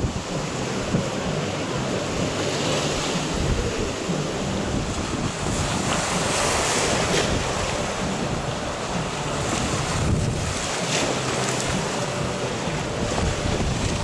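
Wind blowing hard across the microphone in gusts, over the steady rush of surf breaking on a choppy sea.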